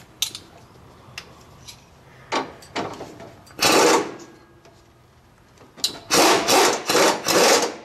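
Ratchet running the rear track bar bolt into its bracket in short spells: two brief ones a couple of seconds in, a louder one at about four seconds, then three longer spells in close succession near the end.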